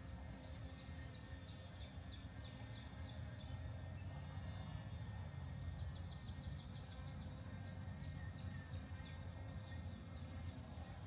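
Osprey calling: series of short, high, downward-slurred chirps, a few a second, breaking into a faster rapid chatter about six seconds in before the slower chirps resume. A steady low rumble of wind sits underneath.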